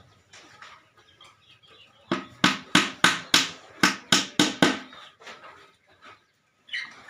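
About nine quick hammer blows on wood, roughly three a second, each a sharp knock with a short ring.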